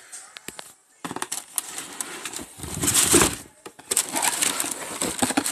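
Cardboard shoe box being opened and handled: scattered taps and scrapes with bursts of rustling, the loudest rustle about three seconds in.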